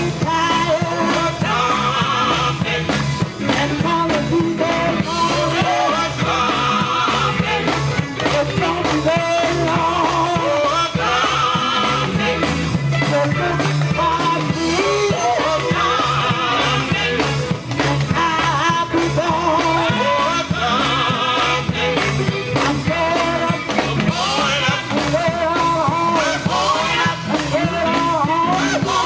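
Gospel group singing with live instrumental backing over a steady beat.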